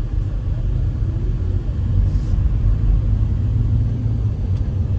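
Steady low road rumble of a moving vehicle, engine and tyres, heard from inside the cabin.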